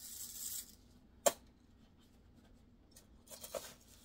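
Dry uncooked rice scooped from a plastic tub and poured through a funnel into a balloon: a brief rush of pouring grains at the start, a sharp click about a second in, and another short rustle of scooped rice near the end.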